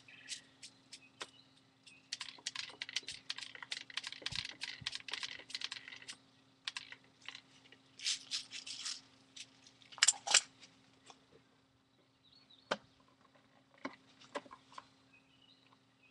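Plastic airsoft BBs rattling and clicking in quick runs, with two louder clacks about ten seconds in and scattered single clicks afterwards.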